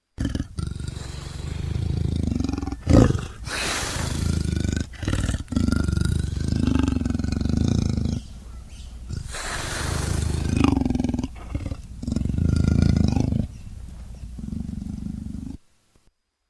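Leopard growling and roaring: a long run of low, rough growls with several louder outbursts, cutting off suddenly near the end.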